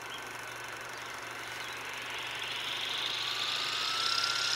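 Electric RC helicopter with Flywing electronics spooling up its main rotor on the ground: a motor whine that rises in pitch and grows louder from about halfway through, with the rush of the speeding blades building alongside it.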